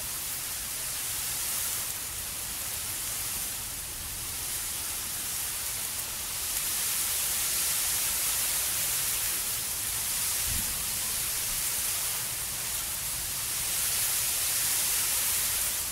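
Steady hiss of outdoor urban ambience over a canal harbour, swelling and easing every few seconds over a low rumble, with one soft low thump about ten seconds in.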